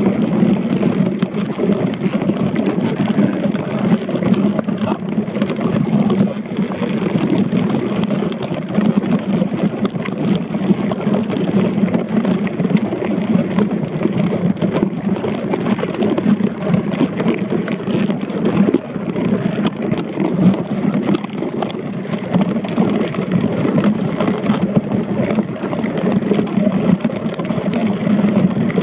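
Steady underwater rumble picked up by a submerged camera, with many small clicks and ticks throughout.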